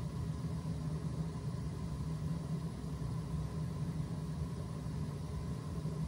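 Gas-fired steam boiler (PB Heat Series 63) running with its burner firing: a steady low drone with a faint thin whine above it, as it builds steam pressure toward 1 psi.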